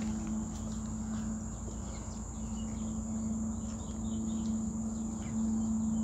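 Steady high-pitched insect chorus in the riverside vegetation, with a few short bird chirps over it. A low steady hum that breaks off briefly now and then runs underneath.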